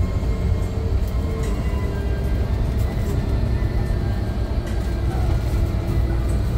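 Steady low rumble of a Scania K360 coach bus on the move, with music playing over it.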